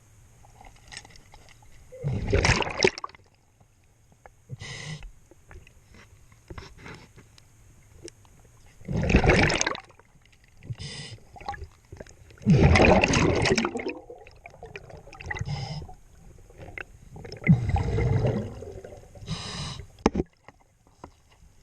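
Scuba diver breathing through a regulator underwater: a loud rush of exhaled bubbles every few seconds, with shorter, fluttering inhalations between them.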